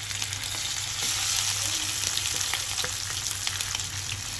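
Masala-coated chicken drumsticks frying in hot oil in a pan: a steady sizzle with small crackles and pops, growing louder about a second in.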